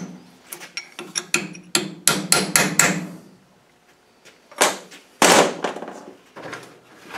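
A hammer striking a steel chisel wedged behind a tapered roller bearing on an LT77 gearbox layshaft, driving the bearing off without a puller: a quick run of sharp, ringing metal strikes, about three or four a second. After a pause, a few heavier metal clanks follow.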